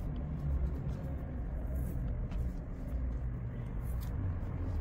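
A steady low rumble, with a few faint, short rustles or ticks over it.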